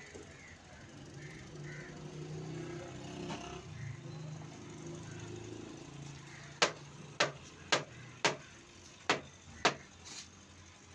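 A low, steady drone, then six sharp knocks in quick succession, about half a second apart.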